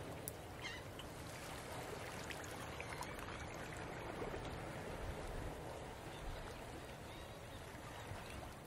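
Steady rushing ambient noise with a few faint clicks, like water washing past a hull.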